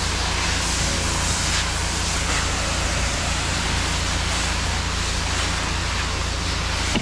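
Pressure washer running while its wand sprays a steady hissing stream, over a constant low rumble, as in soft washing with a downstreamed chlorine (sodium hypochlorite) mix.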